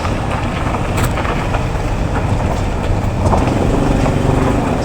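Street traffic: a steady rumble of passing vehicles, with an engine hum growing louder about three seconds in.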